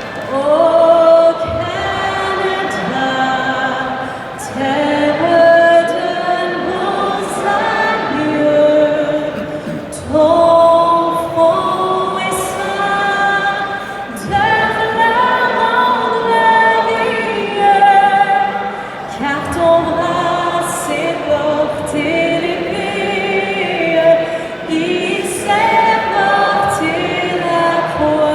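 Choir singing, with long held notes that slide between pitches and no audible beat.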